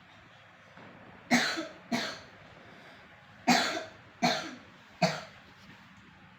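A cat coughing: five short coughs in two bouts, two close together and then three in quick succession.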